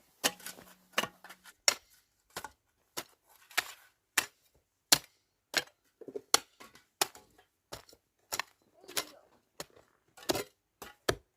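Repeated sharp chopping or striking blows, about two a second at an uneven pace, some harder than others.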